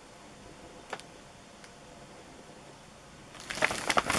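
Quiet room tone with a single click about a second in, then a burst of crinkling, clicking handling noise near the end as a hand grabs the plastic-wrapped firework box.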